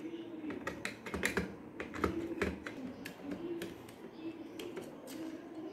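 Irregular small clicks and taps of plastic parts being handled and unclipped as an energy meter's counter register and its little drive motor are pried out of the casing.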